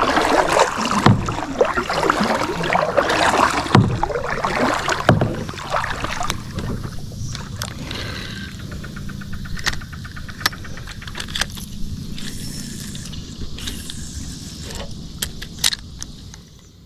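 Water splashing and sloshing against a kayak for about the first six seconds, then quieter handling noise with many sharp clicks and metal clinks and a brief fine rattle in the middle.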